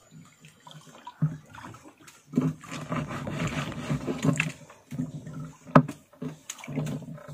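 Sea water sloshing and lapping against the hull of a small outrigger boat in uneven surges, with a few sharp knocks; the loudest knock comes about six seconds in.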